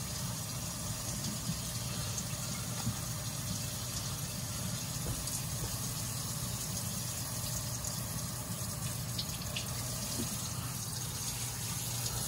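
Kitchen faucet running steadily into a stainless steel sink, with a trout being rinsed by hand under the stream.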